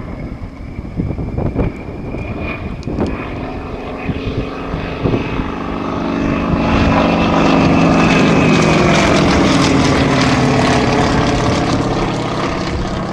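Cessna 195's nine-cylinder M-14B radial engine and MT propeller flying past: the drone swells to its loudest about two-thirds of the way through, then eases off as its pitch drops.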